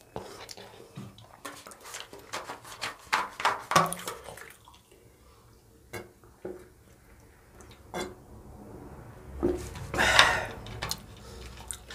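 Fingers mixing rice and gravy on a plate: soft wet squishing with many small clicks of fingertips against the plate. It goes quieter in the middle, with single ticks, and a louder wet burst comes near the end.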